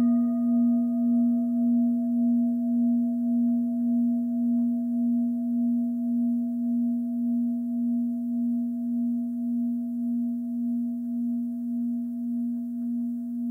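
A single deep bell-like metal tone, struck just before, ringing on and slowly fading with a steady wobble of about two pulses a second. A higher overtone dies away in the first two seconds.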